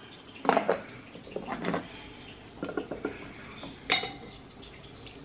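A measuring spoon and kitchen dishes clinking and knocking while seasonings are measured out: a series of separate short clinks, the sharpest about four seconds in.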